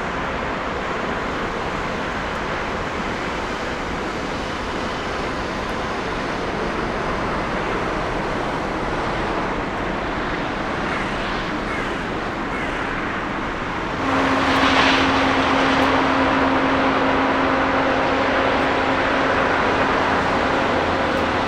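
Jet airliner engines: a steady rushing noise that about two-thirds of the way through jumps suddenly louder, with a steady low hum coming in.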